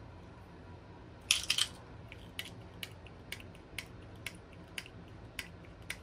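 Small pump-mist bottle of shimmer spray: one short spritz about a second in, then the pump clicking about twice a second as it is pressed over and over with little coming out, a bottle the crafter suspects is clogged.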